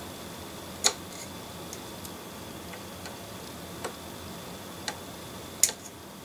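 A few small, sharp clicks at irregular intervals, the loudest near the end, as a tiny screw and small screwdriver are worked against the metal chassis and motor of a 00 gauge model locomotive. The motor is not yet lined up, so the screw will not go in.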